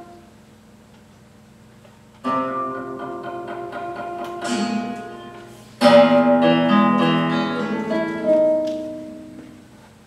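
Guitar quartet music. After about two seconds of quiet, several guitars come in together with a sudden chord, and a louder chord about six seconds in rings on and fades away near the end.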